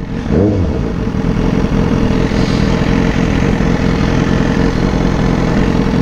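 BMW S1000R's inline-four engine running steadily while the motorcycle rolls along, with a brief rise and fall in pitch about half a second in.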